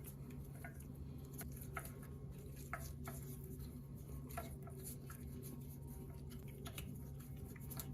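Scattered light clicks and taps of hand tools on the air-cooled VW engine's oil sump plate and its fasteners as the plate is being removed, over a steady low hum.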